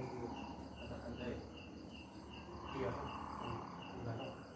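Crickets chirping in a steady, even rhythm, about three to four chirps a second.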